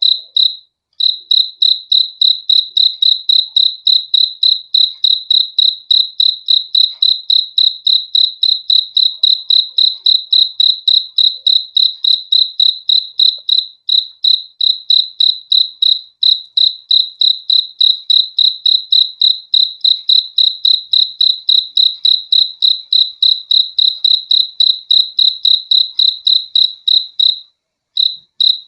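A cricket chirping steadily and close, a high clear tone repeated about three to four times a second, with a few brief pauses.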